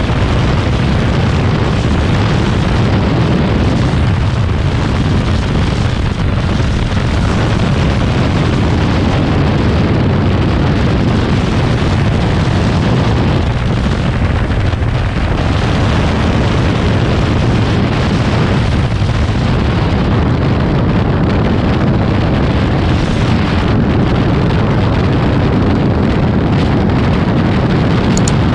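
Loud, steady wind buffeting on the microphone of a motorcyclist's helmet camera at road speed, a dense low rushing noise that drowns out the engine.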